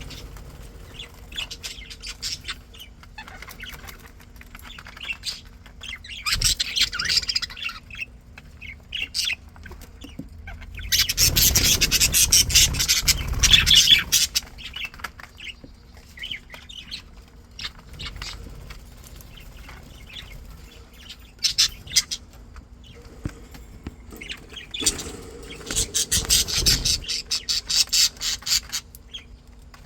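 Pet budgerigars chirping and chattering in bursts, loudest from about eleven to fourteen seconds in and again near the end.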